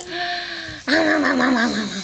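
A baby's excited squeals: one drawn-out squeal, then from about a second in a louder, wavering one that slides down in pitch.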